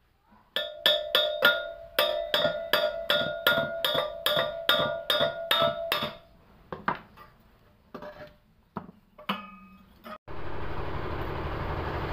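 A small hammer tapping on the steel hub of a blower fan: about eighteen ringing metallic strikes at roughly three a second, then a few scattered knocks. About ten seconds in, a steady rushing noise cuts in abruptly.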